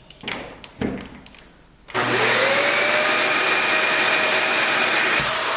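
A few handling clicks and knocks, then a Dyson Ball Multifloor upright vacuum cleaner is switched on about two seconds in. Its motor whine rises as it spins up and then runs steadily and loudly. Near the end the sound briefly dips and the whine settles a little higher.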